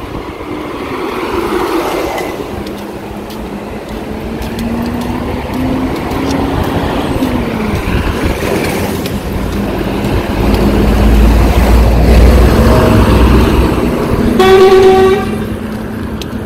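Road traffic passing close by: vehicle engines, the loudest one going past in the last third. One short horn toot comes near the end.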